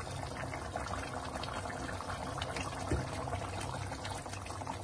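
Chicken karahi sizzling and bubbling in the pan over high heat, a steady hiss dotted with small spattering crackles as the masala fries down.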